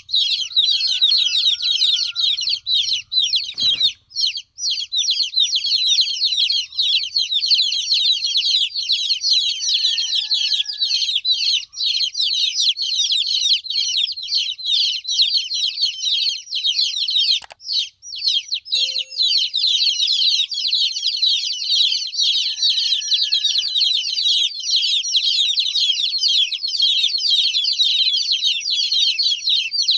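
A brood of baby chickens chirping nonstop, many high-pitched peeps overlapping in a dense chorus. Two brief knocks sound, about four seconds in and again past the middle.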